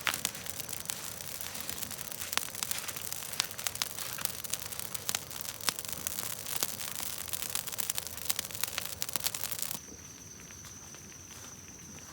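Open fire crackling and popping with many sharp snaps. About ten seconds in it cuts off abruptly to a quieter background with a steady high-pitched tone.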